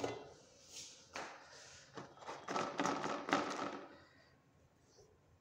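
A run of short knocks and rustling scrapes from handling, ending about four seconds in.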